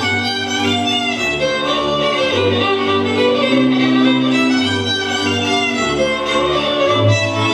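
Hungarian folk string band playing a slow couple-dance tune from Ördöngösfüzes: a fiddle carries the melody over long held bass notes that change about once a second.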